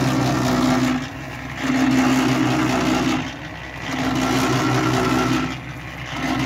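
Electric drum concrete mixer running while it mixes a batch of cement-sand mortar. Its steady hum swells and eases in a regular cycle about every two seconds.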